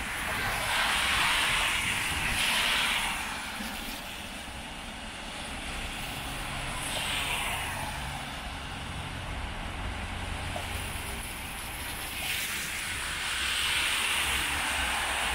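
City traffic on rain-wet streets: tyres hiss on the wet road as several vehicles pass, over a steady rain hiss and a low engine rumble.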